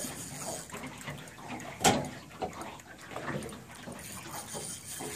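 Water lapping and splashing against a boat hull, with one sharp knock about two seconds in.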